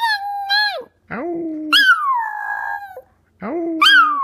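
Chihuahua howling like a wolf in long, high-pitched calls that slide down in pitch, three of them, with two shorter, lower-pitched howling calls in between.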